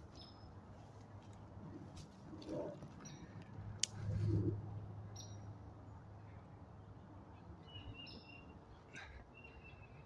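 Scattered short, high chirps from up in the trees, which the hiker thinks could be coatis (tejones) but isn't sure of. Footsteps on the forest floor run underneath, with a sharp click and a louder low thump about four seconds in.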